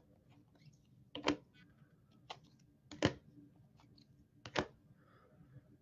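Clear plastic card holders clicking against each other as a small stack of trading cards is flipped through by hand: four or five sharp clicks, roughly a second apart.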